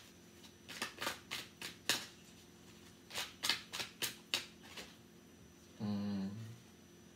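A tarot deck being shuffled by hand: two runs of quick card flicks, each about a second and a half long. Near the end comes a short hum from a person's voice.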